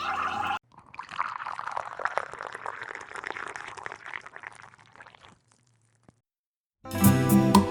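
Water pouring and splashing for about four seconds, then fading out. After a short silence, gentle music with plucked guitar starts near the end.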